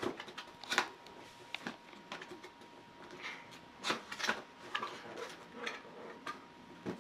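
Cardboard box being handled and its top flaps pulled open: scattered scrapes, rustles and taps of cardboard, the sharpest about a second in and near the middle.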